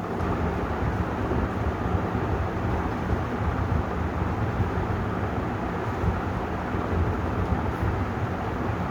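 56-inch Vision ceiling fan running steadily: an even rush of moving air with a faint low hum.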